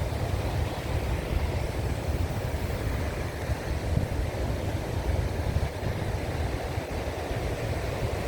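Ocean surf and wind on the Atlantic coast, a steady noise with a low, fluttering buffet of wind on the microphone.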